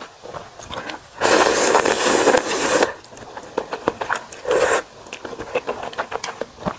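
Slurping spicy instant ramen noodles from a ladle: one long slurp about a second in lasting over a second, a shorter one near the middle, and small chewing and utensil clicks between.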